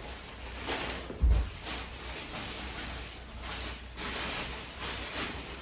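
Rustling and handling noise of shopping items being picked up and moved, in irregular bursts, with a dull low thump about a second in as something is set down or knocked.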